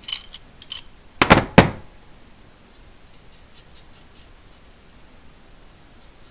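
A few light metallic clicks, then two loud knocks about a second and a half in, as a steel T-handle socket wrench is put down on a wooden workbench. Then only faint ticking as a stud is turned by hand in the cylinder head.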